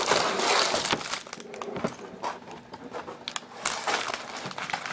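Sealed plastic bags of LEGO pieces crinkling as they are slid out of their cardboard box, a rustle at first and then scattered crackles and clicks.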